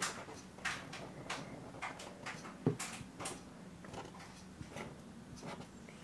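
Felt-tip marker drawing on paper in a string of short, quick strokes, about a dozen at uneven intervals, with one louder soft thump about halfway through.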